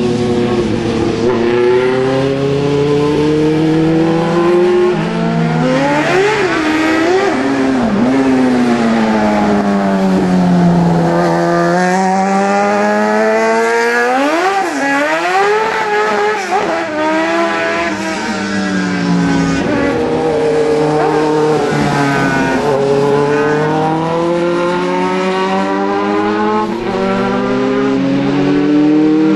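Race car engines revving hard through the gears as the cars lap the circuit. The engine note climbs and falls back again and again, rising in steps through the upshifts and sagging as the cars brake for the corners.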